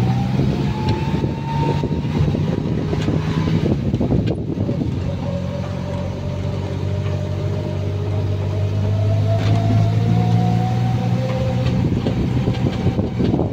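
A road vehicle's engine running on the move, with a steady low hum and road noise, and a faint whine that rises slowly in pitch twice as the vehicle gathers speed.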